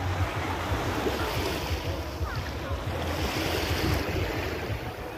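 Wind buffeting the phone's microphone in a steady low rumble, over the hiss of small waves washing on a sandy shore, which swells twice.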